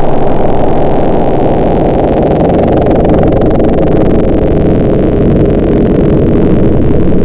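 A motor running steadily and loudly, a deep, muffled drone with no breaks or changes.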